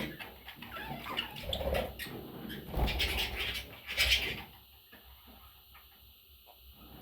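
Budgerigars chirping and chattering, with a few low bumps among the calls; busy for about the first four seconds, then falling away to faint scattered chirps.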